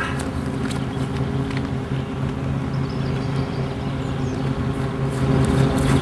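Steady low engine-like hum with a faint noise of the open air behind it, holding an even level throughout.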